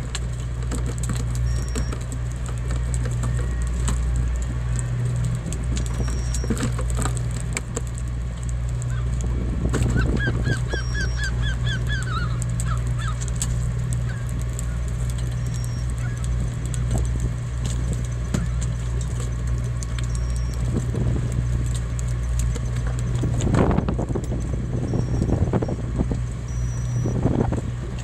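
A fishing boat's engine runs with a steady low hum under the calls of gulls, including a quick run of about eight calls about ten seconds in. Scattered clicks and knocks from the deck gear and a few brief surges of water noise come through.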